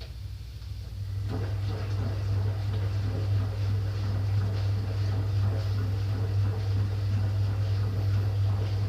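Ariston Quadrifoglio LB476ST washing machine working through its prewash. A steady low hum comes in about a second in, with irregular sloshing and rustling over it.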